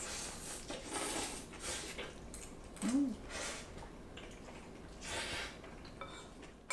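A person eating cold ramen noodles: repeated short bursts of chewing and slurping, with a short hummed "mm" about three seconds in.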